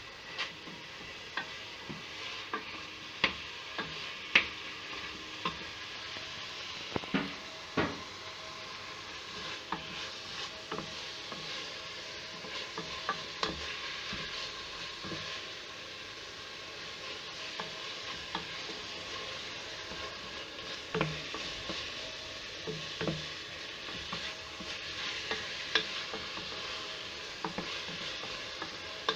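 Meat, onion and spices browning in oil in a stainless-steel pressure-cooker pot, with a steady sizzle. A spoon stirs them, scraping and knocking sharply against the pot again and again.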